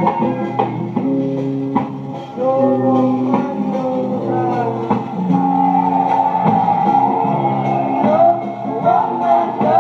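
Guitar-led music with a bluesy feel, played back from a vinyl record; a wavering, bending melody line comes in during the second half.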